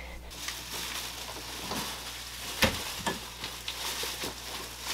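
Plastic shopping bag crinkling and rustling as it is carried in, with a couple of soft thumps, the louder one a little past halfway.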